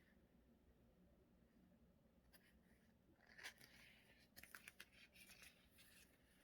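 Faint desk-crafting sounds from paper being handled: a single soft tap about three and a half seconds in, then a short run of small quick clicks and rustles, in otherwise near silence.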